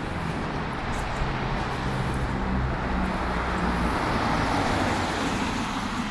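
A motor vehicle passing close by: a low engine hum and tyre noise that swell to a peak a little past the middle and then begin to fade.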